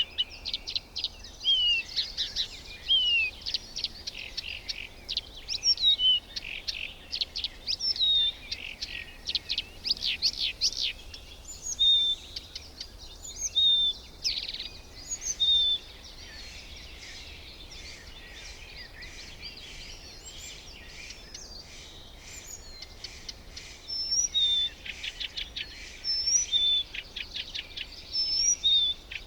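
Birds calling: short whistled chirps and rapid trills, thick for about the first fifteen seconds, thinning out for several seconds, then picking up again near the end.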